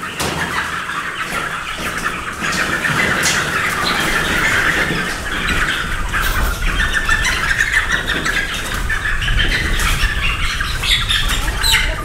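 A flock of young Black Jersey Giant meat chickens cheeping and squawking in a dense, continuous chorus, growing louder a few seconds in as the birds are caught and handled.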